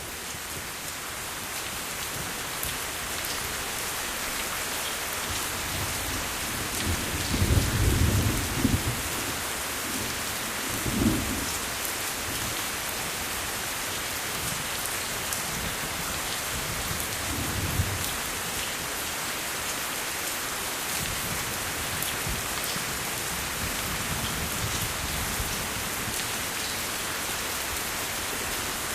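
Steady heavy rain, with low rumbles of thunder rising above it, the loudest about seven to nine seconds in, another around eleven seconds, and a fainter one near eighteen seconds.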